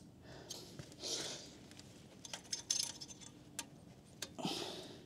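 Light metallic clinks and taps of slip-on exhaust parts and hardware being handled during fitting, with two short hissing sounds, one about a second in and one near the end.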